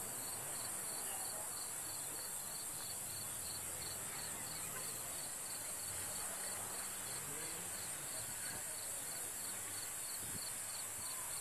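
Outdoor insect chorus: a steady high-pitched drone with a regular chirp repeating a few times a second.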